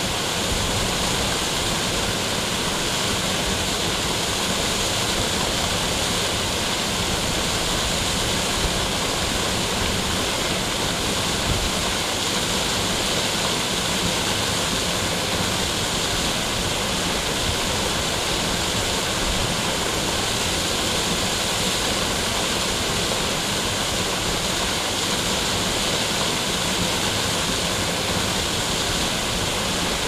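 Waterfall's steady rush of falling water, an even, unbroken hiss.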